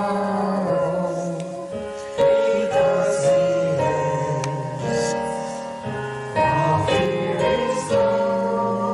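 A hymn sung slowly by several voices with keyboard accompaniment, in long held notes with new chords coming every second or two.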